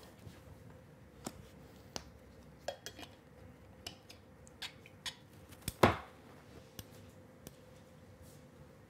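Scattered light clicks and taps of small objects being handled and set down, with one much louder knock about six seconds in.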